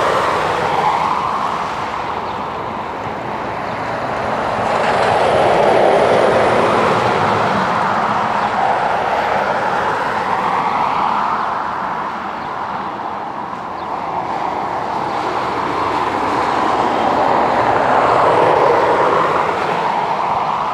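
Airbus A319's jet engines running at taxi thrust, heard as a steady roar from a distance that swells and eases twice.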